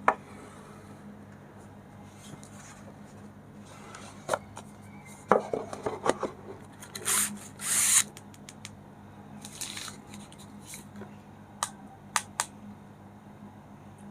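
Phone retail box and packaging being handled and opened: scattered taps, clicks and rustles, with two longer sliding swishes about seven and eight seconds in, over a faint steady hum.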